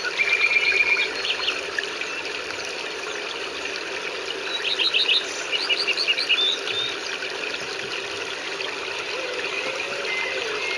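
Songbirds chirping over a steady hiss of rain: a short trill near the start and a quick run of repeated chirps about halfway through.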